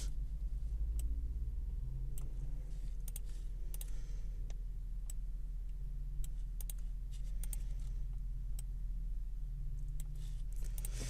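Scattered, irregular clicks of a computer keyboard and mouse being worked, over a steady low electrical hum.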